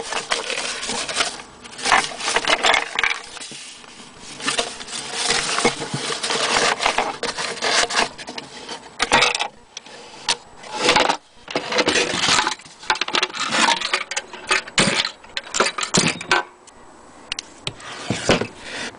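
Hands rummaging in a wooden cabinet drawer of crumpled old paper: paper rustling and crinkling, broken by irregular knocks and clicks of wood.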